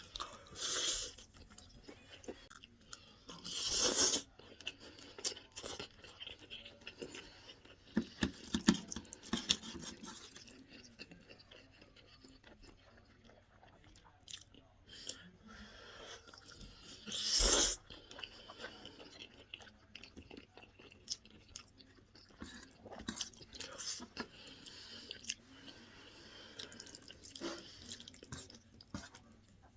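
Close-up chewing and mouth sounds of a person eating creamy chicken pasta with mushrooms: many small wet clicks, with a few louder noisy bursts, the loudest about four seconds in and again around seventeen seconds.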